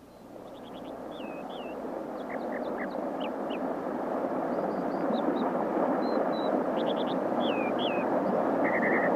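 A stream of running water, fading in over the first few seconds and then holding steady, with small birds calling over it in short chirps and curved notes, and a quick trill near the end.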